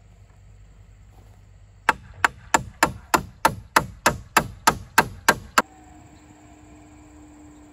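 Claw hammer driving a nail into a wooden board at the roof edge: about a dozen sharp, evenly paced blows, roughly three a second, stopping abruptly.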